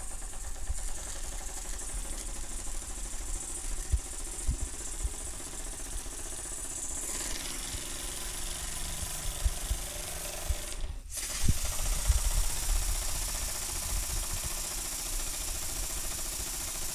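Wilesco D48 twin-cylinder model steam engine running, with a quick rhythmic knocking under a steady hiss of steam. The hiss grows louder about seven seconds in.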